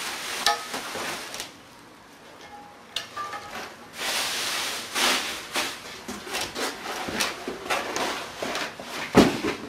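Plastic bags rustling and crackling while cast aluminium track parts are unpacked from a cardboard box, with many small knocks and clicks. Near the end comes a single heavy thud.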